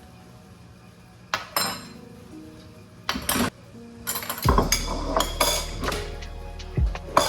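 Pots, pans and cutlery clanking and clinking as they are handled and set down, several separate knocks that come thicker in the second half, over soft lo-fi background music.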